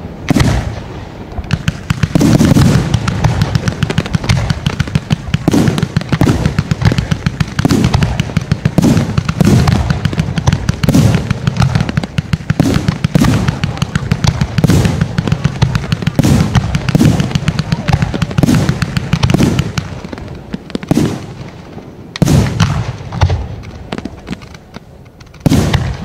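Aerial firework shells bursting in quick succession, heavy booms about one or two a second with sharp cracks between them. The barrage thins after about twenty seconds, leaving a few single loud bursts near the end.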